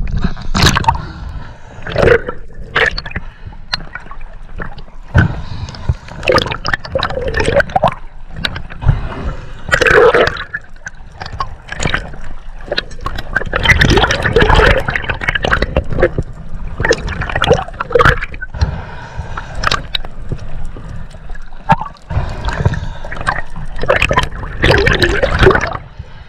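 Seawater splashing and gurgling against a swimmer's GoPro as it goes under and breaks the surface, in irregular surges.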